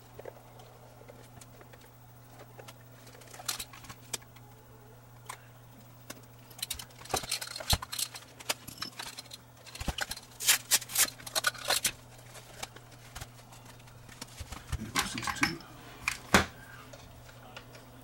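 Plastic clicks and rattles of a Sony DCR-TRV530 Digital 8 camcorder being handled and worked apart by hand. The clicks come in scattered short clusters over a steady low hum.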